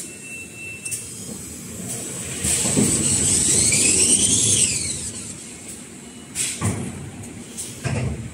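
Kitchen towel embossing and rewinding machine running with a steady low hum. For about two seconds in the middle a louder whine rises and falls in pitch, and a few sharp knocks come near the end.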